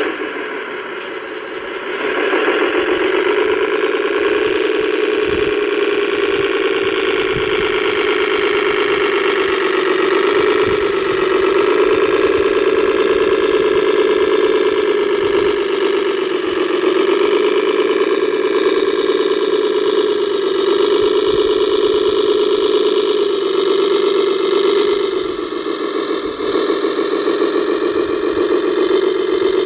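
Radio-controlled model construction vehicle running steadily, a constant engine-like drone that grows louder about two seconds in and eases off briefly near the end.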